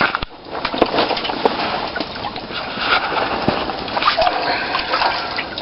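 Water sloshing and splashing in an ice-fishing hole as a lake trout is brought up through it, with irregular small splashes and knocks.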